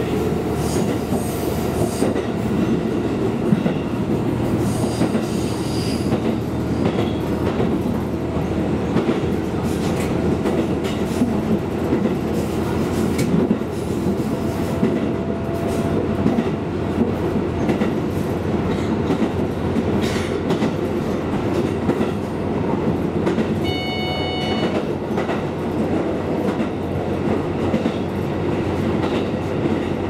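KiHa 220 diesel railcar running on single track, heard from inside the car behind the cab: a steady rumble of engine and wheels on rail, with scattered clicks over rail joints. A brief high-pitched tone sounds about three-quarters of the way through.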